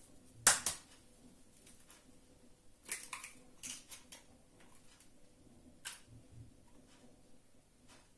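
Short, sharp knocks and clicks of kitchen dishes being handled and set down on the counter: the loudest about half a second in, a small cluster around three seconds, and one more near six seconds.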